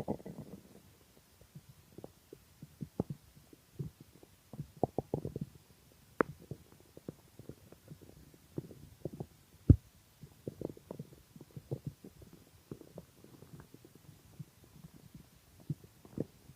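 Hungry stomach gurgling: a scatter of small pops, clicks and short gurgles, with a sharp pop about six seconds in and the loudest pop near ten seconds.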